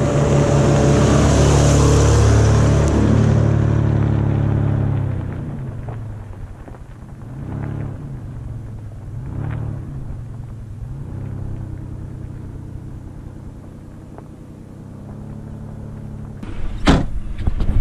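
Toyota 4Runner driving past and away up a gravel track: engine running loud with its tyres crunching over loose gravel for the first few seconds, then fading into the distance with a few rises and falls in engine speed. A couple of sharp knocks near the end.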